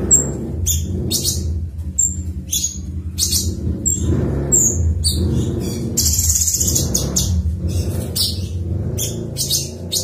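Blue-winged leafbird (cucak cungkok) singing vigorously, a fast string of short, sharp high notes, several slurring downward, with a denser trilled phrase about six seconds in. A steady low hum runs underneath.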